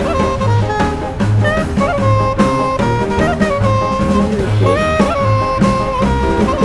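Background music in a jazz or swing style: a saxophone or brass melody over a steady drum and bass beat.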